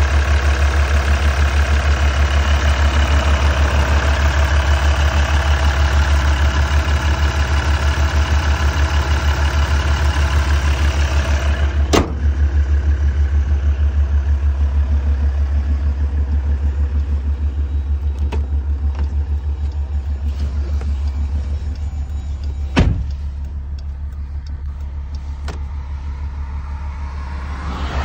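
2014 Jeep Grand Cherokee EcoDiesel's 3.0-litre V6 turbodiesel, fitted with a K&N air cleaner and CXR intercooler piping, idling steadily with an even low pulse. A sharp knock comes about twelve seconds in, after which the engine sounds more muffled, and a heavier thump about twenty-three seconds in, after which it is quieter still.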